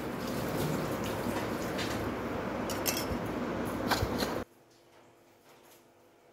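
Steady background hiss with a few faint clicks and taps from hands folding and sealing samosa pastry. The sound cuts off abruptly to silence about four and a half seconds in.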